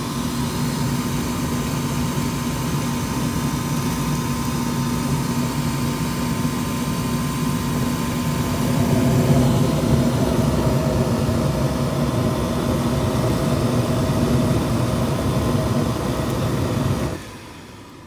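80% gas furnace running with its burners lit: a steady rush of burner flame mixed with a fan hum. It stops abruptly near the end.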